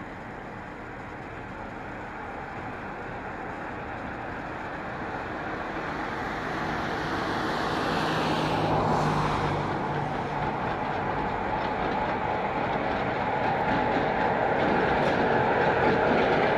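Electric-locomotive-hauled passenger train approaching, its running noise growing steadily louder, with a brief swell of passing noise about halfway through.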